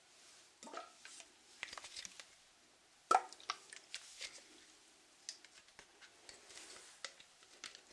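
Close-up handling of a clear plastic skincare bottle of liquid: a run of small clicks, taps and liquid plops, the loudest about three seconds in.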